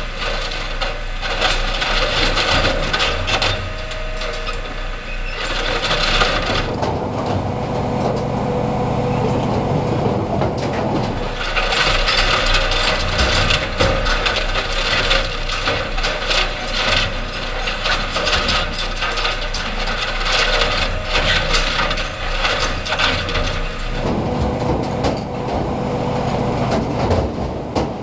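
SSI Pri-Max PR780 primary reducer shredder chewing up a riding lawn mower: its toothed shafts grind, tear and crush the mower's metal and plastic, with frequent cracks and bangs as parts break.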